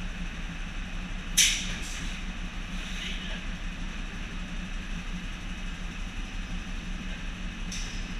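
Diesel engine of an HLF 20 fire engine idling steadily, with a short sharp hiss about one and a half seconds in and fainter hisses near three seconds and near the end.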